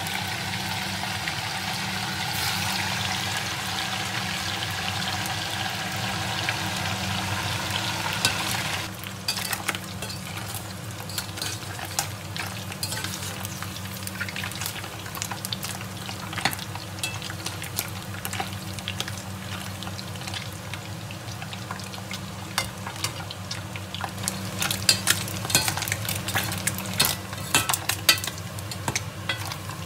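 Small deboned fish deep-frying in hot oil in a metal pot, sizzling and crackling. From about nine seconds in, a metal slotted skimmer scrapes and clinks against the pot as the fish are stirred, with many sharp clicks near the end.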